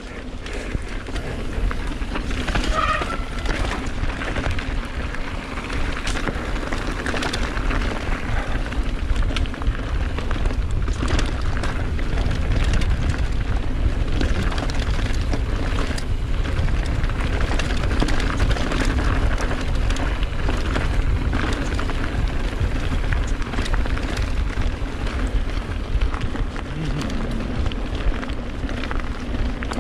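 Mountain bike ridden fast over a rough enduro trail, heard through a body- or helmet-mounted action camera: wind buffets the microphone with a constant rumble, and the tyres, chain and frame rattle and click over roots and stones, with a short squeak about three seconds in.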